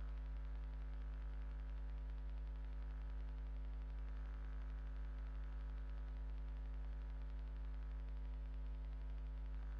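Steady electrical mains hum with a faint static hiss, unchanging throughout.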